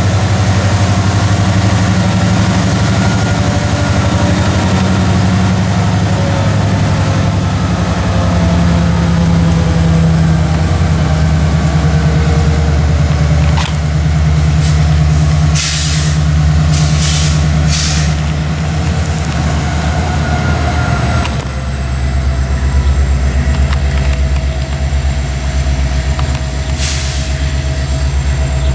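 Canadian Pacific diesel-electric freight locomotives moving slowly past, their engines giving a steady deep rumble under a thin high whine that slowly falls in pitch. Several short hisses come about halfway through and once more near the end.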